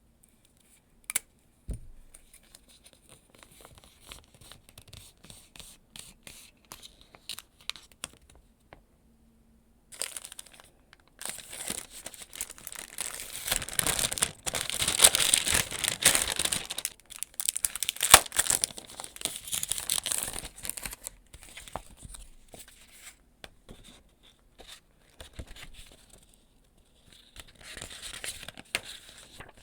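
Packaging being unwrapped by hand: light taps and clicks at first, then a long stretch of loud crinkling and tearing of paper or plastic wrapping. The rustling dies down and picks up again near the end.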